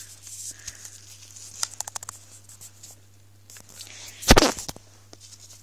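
Hands fiddling with a small tin and its clear plastic sail: a quick run of small clicks and rustles, then one loud bump about four seconds in.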